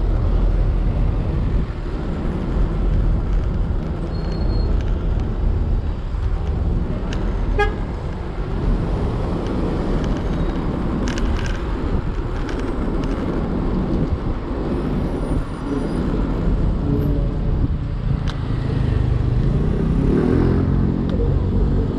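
Steady low rumble and road noise of a ride on a Segway Ninebot ES4 electric scooter with solid tyres through city traffic. Near the end another vehicle's sound rises in pitch.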